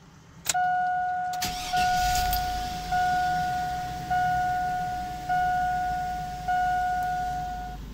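Dashboard warning chime of a 2002 Chevy Tahoe dinging six times at an even pace, each ding fading, as the key is turned on. About a second and a half in, the engine cranks, catches and settles into a low idle.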